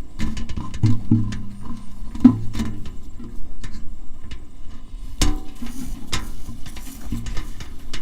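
Kite reel resonator sounding from the pull of the kite line: short low hums that swell and break off during the first couple of seconds, then scattered clicks and knocks, with one sharp knock about five seconds in.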